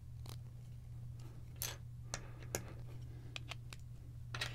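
Vintage LEGO bricks being handled and pressed together, giving about ten sharp, separate clicks and taps at irregular intervals.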